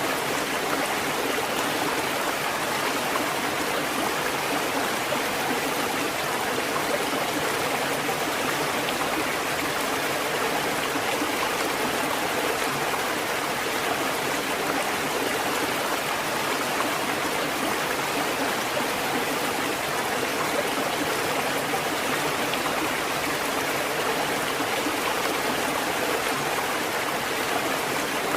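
Water from a fountain splashing and flowing in a steady, unbroken rush.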